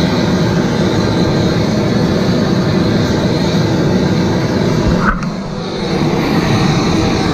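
Hose-fed gas blowtorch burning with a steady, loud rushing hiss as its flame heats a pan. The sound is briefly softer about five seconds in.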